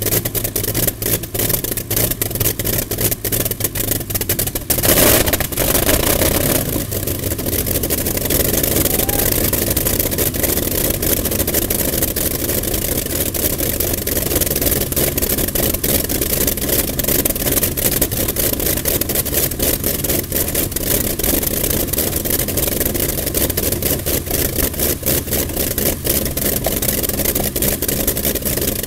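Wright R-3350 Cyclone 18-cylinder radial aircraft engine from a B-29 running on a test stand, propeller turning, with a rapid even firing beat. About five seconds in it turns louder for roughly two seconds, then settles back to a steady run.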